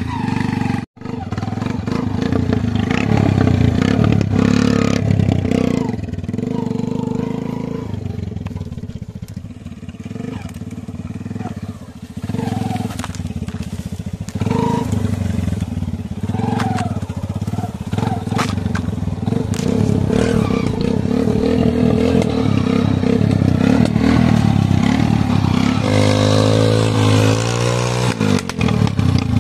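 Small motorcycle engine revving up and down as the bike is spun in tight circles on loose sandy dirt, with a rising rev near the end. The sound cuts out briefly about a second in.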